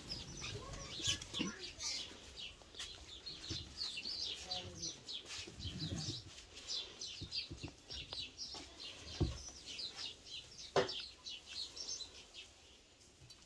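Small birds chirping in a rapid, continuous run of short high chirps, thinning out near the end. A couple of sharp knocks stand out about nine and eleven seconds in.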